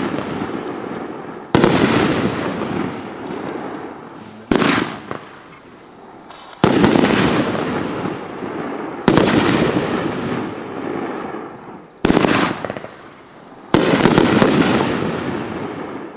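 A 1.4G consumer fireworks cake with 1.2-inch tubes firing about six shells in turn. Each burst is a sudden loud break followed by a long fading tail, and the bursts come one to three seconds apart.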